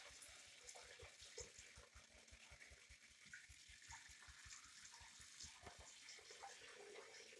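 Faint running tap water pouring into a foam-filled bathroom sink, with small splashes as a baby monkey moves about in the water.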